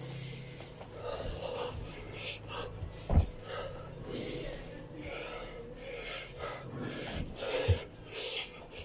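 A man breathing hard and wheezing from the exertion of burpees, near exhaustion. Two dull thumps on the carpeted floor, about three seconds in and again near the end, as he drops and jumps through the burpees.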